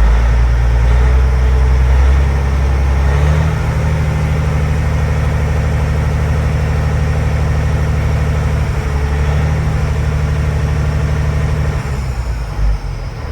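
Caterpillar C15 inline-six diesel in a Freightliner semi running steadily at a raised speed, about 1500 rpm, while the oil pressure is checked. The engine note shifts a few seconds in and eases off near the end.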